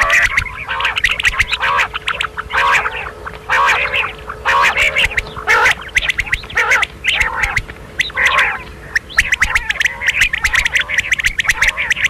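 Quail calling over and over: short harsh calls and sharp clicking notes in quick, irregular succession.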